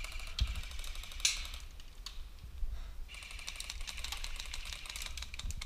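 Two bursts of fully automatic airsoft gunfire, a fast even rattle of clicks: one lasting over a second, the other about two seconds long starting around the middle.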